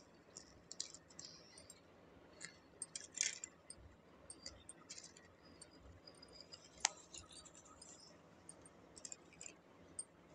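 Faint scattered clicks and rustles of hands working soil and leaves in a terracotta pot, with bangles on the wrists clinking. A brief flurry comes a little after three seconds, and one sharp click a little before seven seconds.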